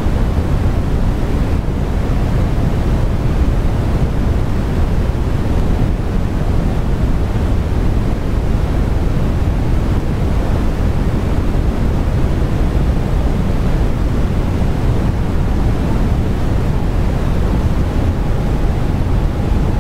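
Steady rushing noise, heaviest in the low end, that does not change in level and has no separate clicks or tones in it.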